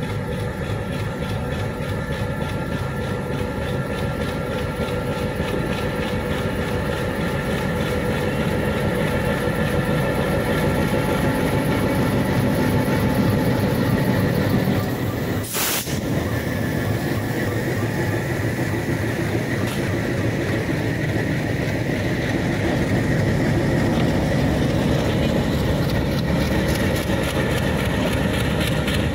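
Bangladesh Railway diesel locomotive running as it hauls a passenger train past, a steady engine drone that grows louder as it comes closer. There is a brief click about halfway through.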